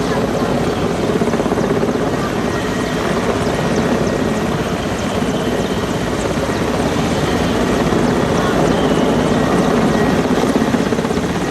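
Helicopter running steadily and loudly, its rotor blades chopping in a fast, even beat.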